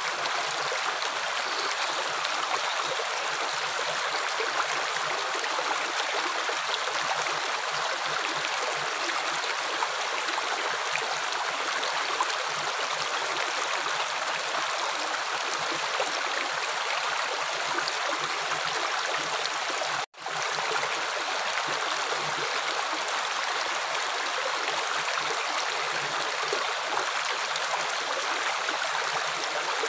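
Steady running water, an even rushing flow with small gurgles, which cuts out for an instant about twenty seconds in before carrying on unchanged.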